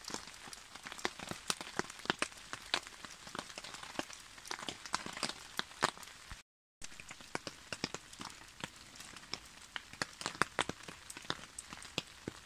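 Rain falling on a tarp shelter: a soft steady hiss under many irregular sharp drip taps. The sound cuts out briefly about halfway through.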